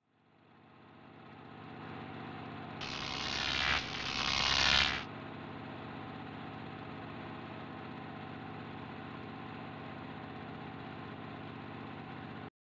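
Intro sound effect: a steady buzzing hum fades in, two hissing surges swell louder about three and four seconds in, then the hum holds steady and cuts off abruptly near the end.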